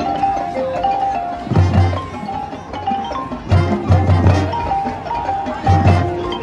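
High school marching band playing its field show: short, bright mallet-percussion notes from the front ensemble over groups of low hits that come about every two seconds.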